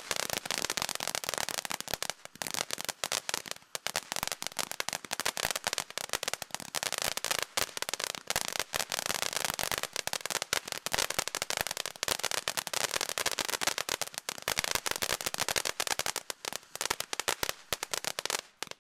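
Cutting Edge 'Prepare For Take Off' firework fountain crackling: a dense, rapid stream of small pops over a spray hiss, stopping abruptly near the end.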